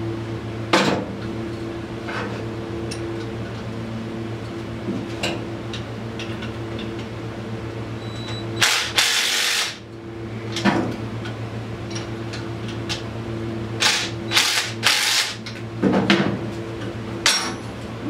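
Cordless impact wrench run in short bursts to tighten the bolts of an ATV's rear axle carrier: one burst about a second long near the middle and several shorter ones near the end, with a few sharp clicks of the tool and bolt between. A steady fan hum runs underneath.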